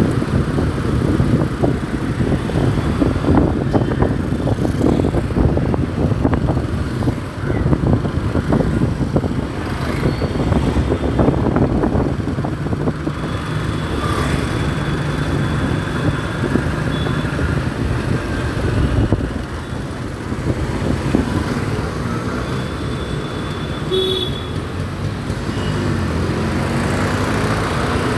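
Motorcycle running on the move through city traffic: a steady engine and road rumble with cars, scooters and auto-rickshaws around it. A few brief high beeps sound around the middle and again later.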